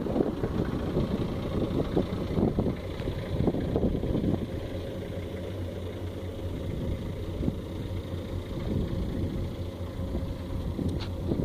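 An engine idling, giving a steady low hum with some uneven rumble.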